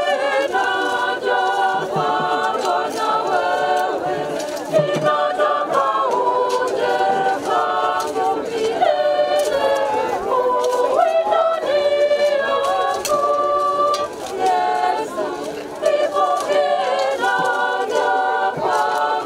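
A group of voices singing together unaccompanied, in the steady stepping phrases of a choir or congregation.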